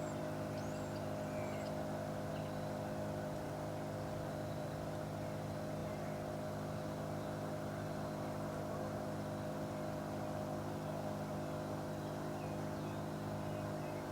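Steady drone of an engine running at a constant pitch, with no change in speed.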